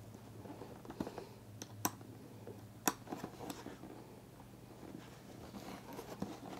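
Faint, irregular clicks and ticks of a small hex key turning M3 socket-head screws into a helmet communicator mounting clip, with sharper clicks about one, two and three seconds in.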